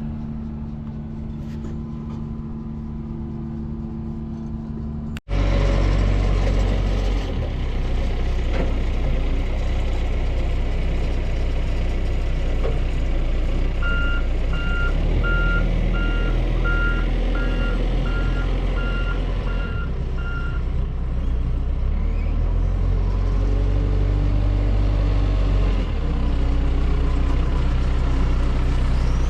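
Heavy sod farm machinery engines running steadily. After a cut, a louder, deeper engine takes over, and partway through a reversing alarm beeps about a dozen times, a little under twice a second.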